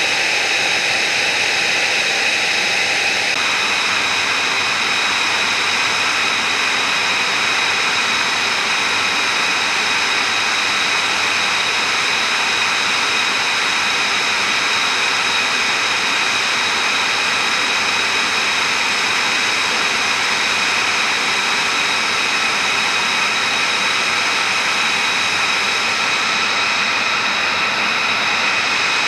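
Jet turbine running steadily: a high-pitched whine of several steady tones over a constant rush. A lower hum drops out about three seconds in.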